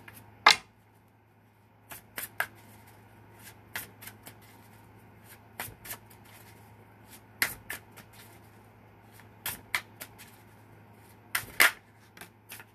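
A deck of tarot cards being shuffled by hand: irregular sharp snaps and slaps of the cards, loudest about half a second in and again near the end, over a faint low steady hum.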